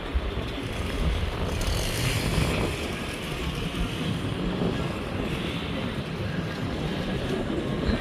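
Steady outdoor background noise with a low rumble.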